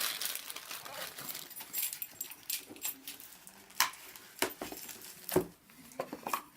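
Scattered sharp clicks and knocks with a light rustle: plastic vacuum-cleaner parts and packaging being handled during unboxing. The loudest knock comes about five seconds in.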